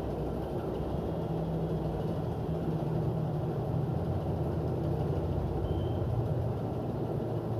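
Steady low mechanical hum and drone, even throughout with no strokes or breaks.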